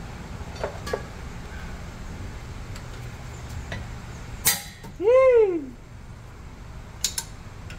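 A wrench clinks against a rear brake caliper bolt, with light metallic clicks and one sharp click about four and a half seconds in. Right after the sharp click comes a short loud squeal that rises and then falls in pitch, and there are two more quick clicks near the end.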